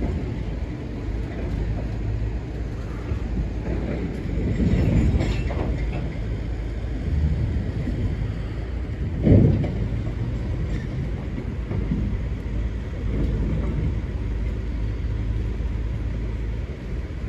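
Freight train's gondola cars rolling slowly past, a steady low rumble with wheel clatter. A single louder thump stands out about nine seconds in.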